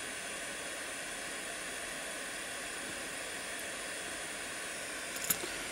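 Small butane torch burning with a steady hiss, with one faint click near the end.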